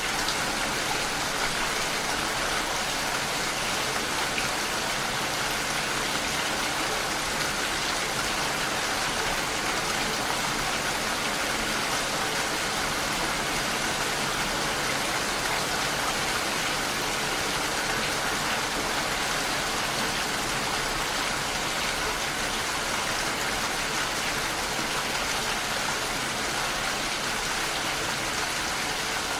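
Steady rain pattering on a window pane, an even hiss of many drops with no let-up.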